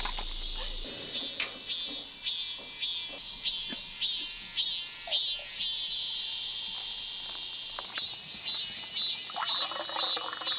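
Steady high-pitched chorus of summer insects, with short, sharp chirps repeating every half second or so.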